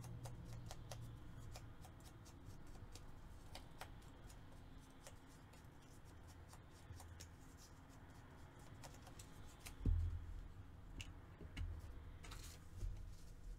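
Faint scraping and light tapping of a foam ink blending tool dabbing ink onto the edges of paper, with scattered small clicks. About ten seconds in comes a single thump as the blending tool is set down on the table.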